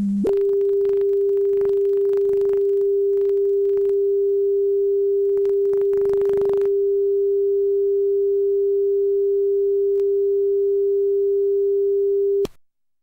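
Channel 5 test-transmission tone: one steady, unchanging pure tone that cuts off abruptly near the end.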